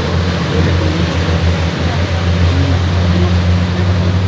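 Passenger boat's engine running at a steady cruise, a continuous low hum heard from on board while under way.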